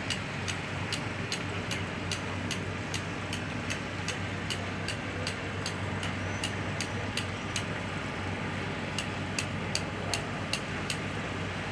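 A boat's engine running steadily with a low hum, with a sharp tick repeating about two to three times a second over it.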